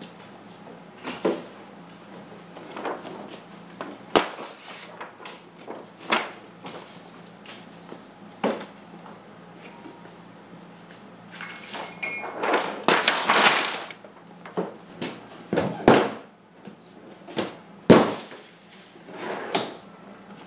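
Objects being handled and moved about: a string of irregular knocks, bangs and rustling, with a busier stretch of knocking and rustling past the middle and sharp bangs about four seconds in and shortly before the end.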